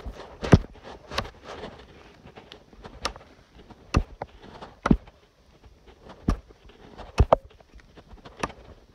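Hatchet chopping into wood: about nine sharp strikes at uneven intervals, roughly one a second, two of them in quick succession a little past seven seconds in.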